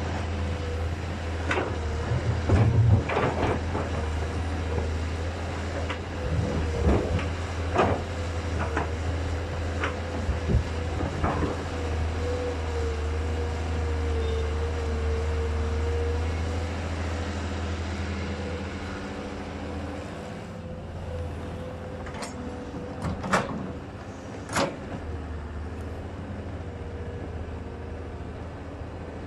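Tracked hydraulic excavator at work: its diesel engine runs steadily with a held hydraulic whine, while the bucket clunks and scrapes through earth and rock. The engine drops lower about two-thirds of the way through, and there are two sharp knocks near the end.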